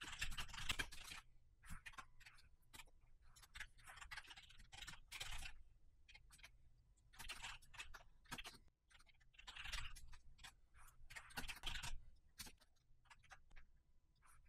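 Computer keyboard typing, faint: quick runs of key clicks in irregular bursts with short pauses between them.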